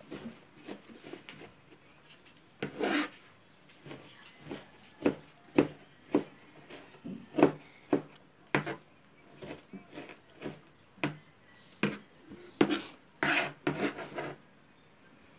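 Kitchen knife chopping on a plastic cutting board: irregular knocks of the blade, roughly one or two a second, with some scraping as the minced garlic, shallot and ginger are gathered and chopped finer.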